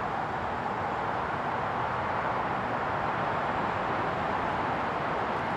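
Steady, even outdoor rumble and hiss with no knocks, clanks or distinct tones.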